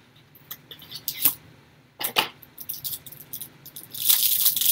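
Trading-card packs and wrappers being handled: scattered light clicks and rustles, then a steady crinkling from about four seconds in.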